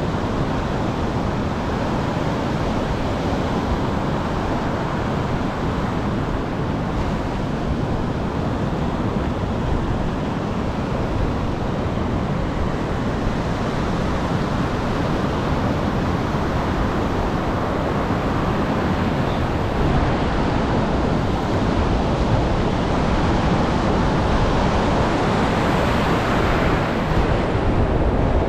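Heavy surf from a rough sea breaking on the shore: a continuous rush of waves with wind buffeting the microphone, swelling a little louder over the last several seconds.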